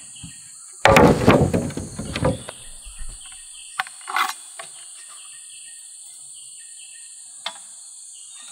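Bamboo poles shifted and knocked on the leafy forest floor, a rustling clatter about a second in, followed by a few light taps. Under it, a steady high insect drone with repeating chirps.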